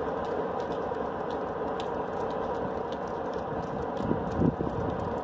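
Diesel shunting locomotive's engine running steadily as it rolls slowly over yard points, with a single thump about four and a half seconds in.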